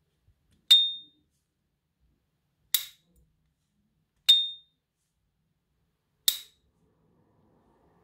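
Gold-plated S.T. Dupont lighter's lid worked open and shut twice: four sharp metallic clicks about two seconds apart. The first and third carry a brief, high, clear ring, the lighter's signature opening "ping"; the second and fourth are duller snaps of the lid closing.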